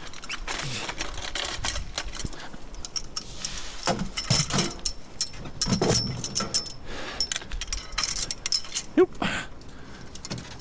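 Metal scrap clinking, rattling and knocking as it is handled, with scattered sharp clicks and light metallic ringing.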